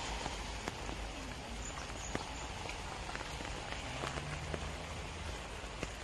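Spring rain falling on lotus leaves and pond water: a steady hiss with scattered single drops ticking close by.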